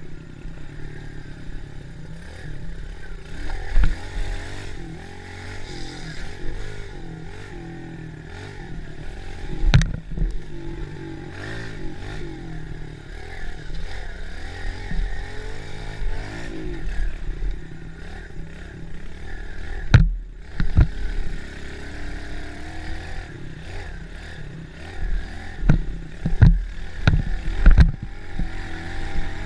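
Mini bike's small engine running and revving up and down while riding a bumpy dirt track. Sharp knocks and clatter from hitting bumps come through loudly, about four and ten seconds in, once more near the middle, and several times close together near the end.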